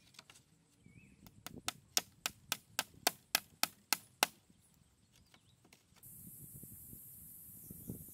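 Hammer striking the rods of a round frame: about a dozen sharp knocks, three or four a second, stopping a little after four seconds in. After a cut, a steady high hiss with soft rustling.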